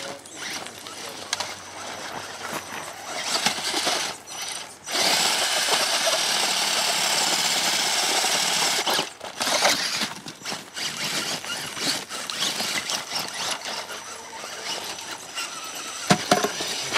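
Radio-controlled trail truck's electric motor and gears whining in stop-start spurts as the throttle comes on and off, with one steady run of about four seconds partway through.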